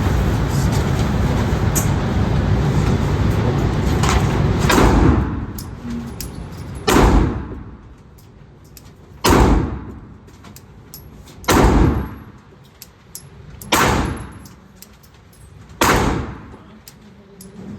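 9mm Glock 45 pistol fired in slow, deliberate single shots, six of them about two seconds apart, each a sharp crack with a short echoing tail. A steady rushing background noise fills the first few seconds before the shots.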